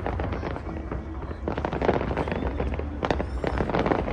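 Aerial fireworks crackling and popping in quick clusters, busiest about a second and a half in and again about three seconds in.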